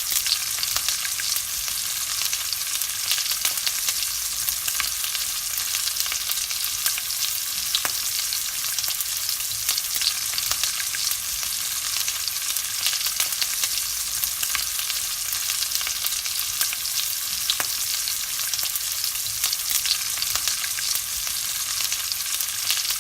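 Bacon frying in a hot pan: a steady sizzle with dense, fine crackling and occasional louder pops of spitting fat.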